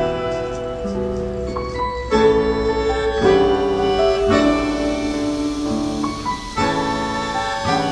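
Instrumental background music with held notes that change every second or so.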